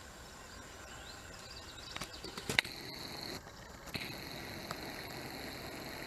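Quiet outdoor field ambience with a faint steady high hiss, broken by a few sharp clicks or taps, the loudest about two and a half seconds in.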